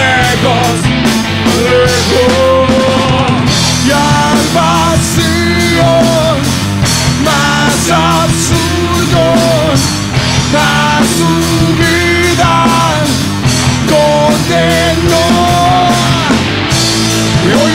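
Rock band playing a song: a male voice singing the melody over electric guitars, electric bass and a Ludwig drum kit.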